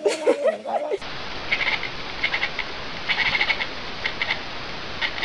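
A cat's wavering yowl trails off, then a tabby cat chattering: several short runs of rapid clicking chirps over a steady hiss.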